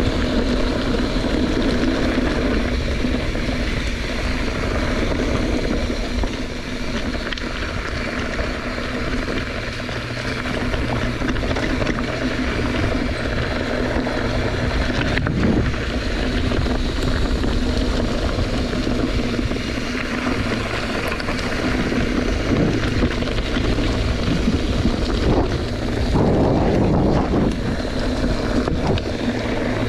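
Wind buffeting the microphone while riding downhill at speed: a steady rushing noise with a low, even hum underneath.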